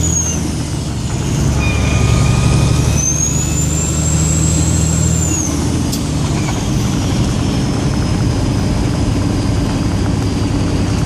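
Car-carrier semi truck's diesel engine running on the move, heard from inside the cab, with a high whine that rises and falls as the truck pulls and eases off. The engine note changes about five and a half seconds in, and there is one sharp click just after.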